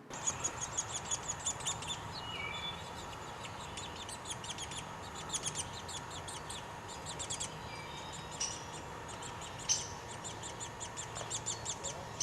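Wild birds chirping and calling, with quick runs of short high chirps and a few separate whistled notes.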